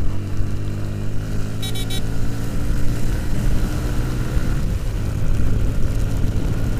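Motorcycle engine running at a steady cruising speed on a wet road, over a rush of wind and tyre spray. About a second and a half in there is a quick run of three high beeps, and the engine note changes about two-thirds of the way through.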